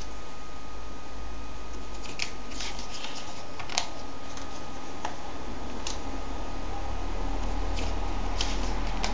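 Scattered rustles and crinkles from a comic book being handled, over a steady background hiss and hum.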